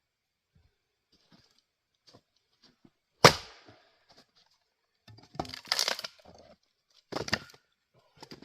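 Gränsfors Bruk axe striking a knotty firewood round: one sharp crack with a short ring about three seconds in. About two seconds later comes a longer stretch of cracking and clatter as the wood gives way, then another sharp knock near the end.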